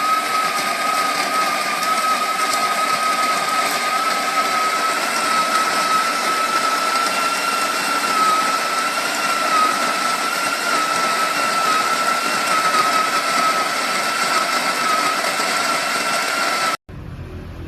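WPM ZD-10T electric coffee grinder running steadily, its motor giving a high steady whine over a rushing noise, cutting off suddenly near the end.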